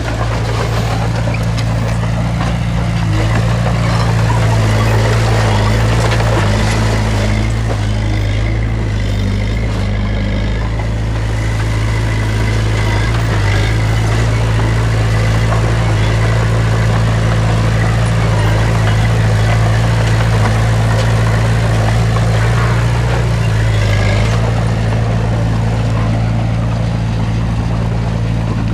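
Diesel engine of heavy earthmoving machinery running steadily, a continuous low drone whose pitch shifts slightly now and then.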